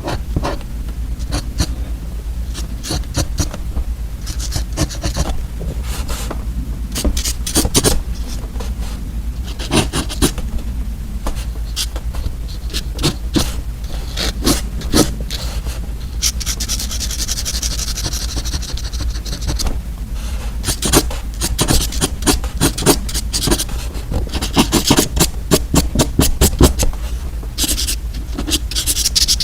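Close-miked pen markers and paper: scratching, rubbing and many sharp clicks, with longer scraping strokes about seventeen seconds in and again near the end.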